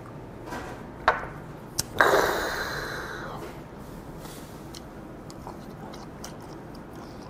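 A shot glass of soju is knocked back and set down with a click, followed by a loud breathy exhale about two seconds in that fades over a second or so. After that come small clicks of wooden chopsticks against a small dish and soft chewing.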